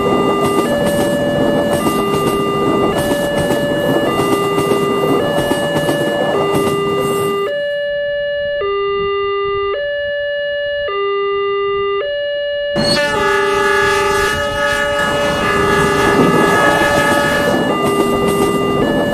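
Wantech electronic level-crossing alarm of an Indonesian railway crossing, sounding two tones that alternate about once a second. A passing train's running noise sits under it, cuts out for about five seconds in the middle, leaving the alarm on its own, then comes back.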